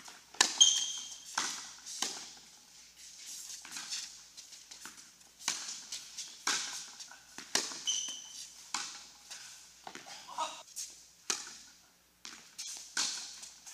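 Tennis balls struck by racquets and bouncing on an indoor hard court during a doubles rally: sharp, echoing pops at irregular intervals, with two short high squeaks. The sound drops out briefly near the end, then the hitting resumes.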